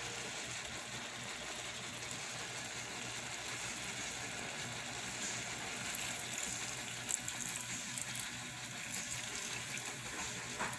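Sprite poured from a glass bottle into a rice cooker's inner pot over shrimp: a steady pouring gush, the soda fizzing and foaming as it fills the pot. A few light clicks come partway through.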